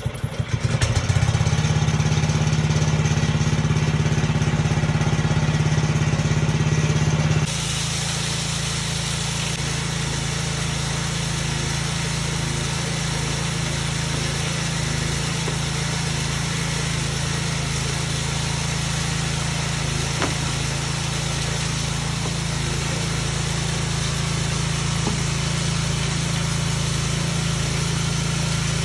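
Small motor-driven chain-mill ore crusher starting up about half a second in and running steadily with a low hum. About seven seconds in its sound drops in level and changes tone, then runs on evenly.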